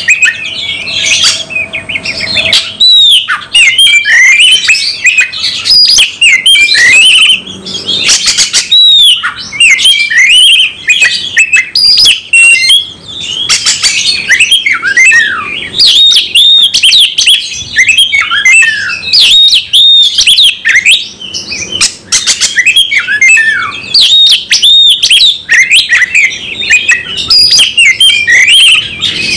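An oriental magpie-robin (kacer) singing without pause: a loud, varied stream of whistles, quick chirps and rapid trills. It is the persistent fighting-mood song that keepers call 'tarung'.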